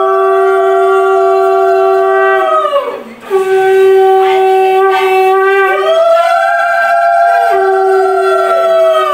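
Conch shells (shankha) blown together in long, loud, steady blasts: a low held note under a higher one that swells up at the start of each blast and sags away at its end. The blowing breaks briefly about three seconds in, then starts again.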